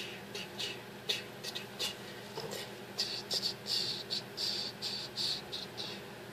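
Rustling and brushing of a fuzzy plush toy and clothing being handled and shaken, in short scratchy bursts that come thicker and faster over the second half.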